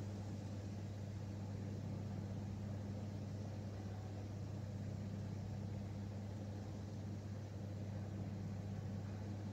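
Steady low machine hum with a faint even hiss behind it.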